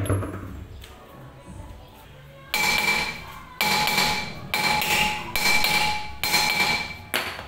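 A hammer striking a car's steel brake drum about six times, roughly once a second, starting about two and a half seconds in; each blow rings like a struck bell. The drum is being knocked loose from the hub, stuck on after five years without being removed.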